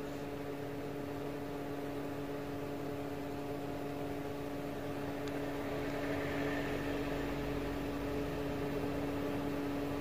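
Petrol-station fuel pump running while fuel is dispensed, heard from inside the car: a steady hum with a fainter tone above it, and a broader rushing noise that swells after about six seconds.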